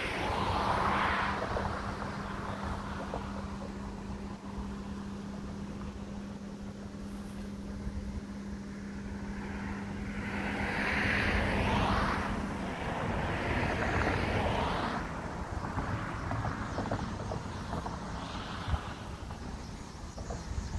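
Wind gusting across the microphone in an open field, with a steady low hum that stops about two-thirds of the way through.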